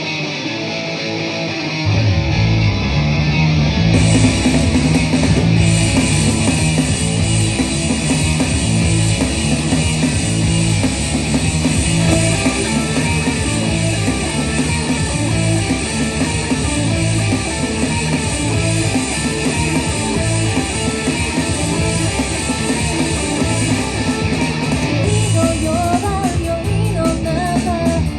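Rock band playing live: electric guitar, joined about two seconds in by bass and drum kit, with cymbals filling in a couple of seconds later.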